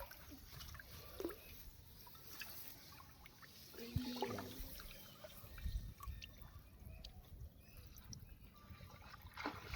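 Faint water dripping and trickling, with scattered small clicks and knocks.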